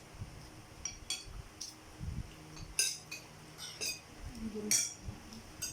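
Cutlery clinking against a plate during a spaghetti meal: about half a dozen light, sharp clinks at uneven intervals.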